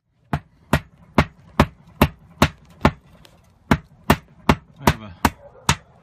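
Hand hammer driving roofing nails: a steady run of sharp strikes, about two and a half a second, with a short pause about three seconds in.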